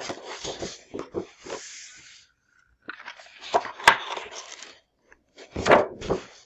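Sheets of 12 by 12 patterned scrapbook paper being handled and turned over: rustling and crinkling in three bursts, with a sharp paper snap near the middle.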